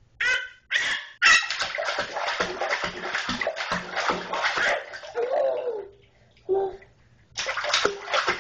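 Water splashing in a bathtub: a few quick slaps, then rapid continuous splashing by a baby that pauses about five seconds in and starts again near the end. A brief falling voice is heard in the pause.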